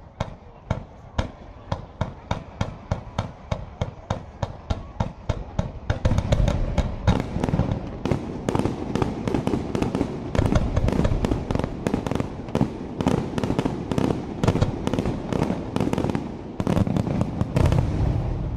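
Fireworks display: a regular run of sharp reports, about two or three a second, then from about six seconds in a dense, louder barrage of rapid-fire bangs that cuts off near the end.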